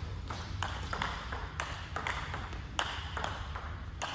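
Celluloid-plastic table tennis ball clicking off rubber paddles and the table in a fast rally, a sharp click every quarter to half second.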